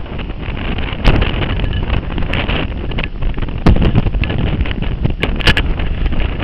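Heavy wind buffeting the microphone of a camera on a motorcycle moving at road speed, with engine and road noise under it. A few sharp knocks on the microphone, about a second in and again later.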